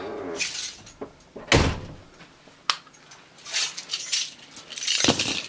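Keys jangling while a front door is opened and closed: a series of rattles and jingles with two heavier dull thuds, about a second and a half in and near the end.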